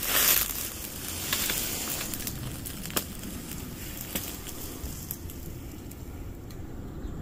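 Dry dead grass and twigs crackling and rustling underfoot, with a few sharp snaps, loudest in the first half-second.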